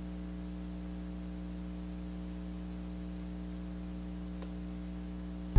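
Steady electrical mains hum with a faint hiss underneath, and a single faint click about four and a half seconds in.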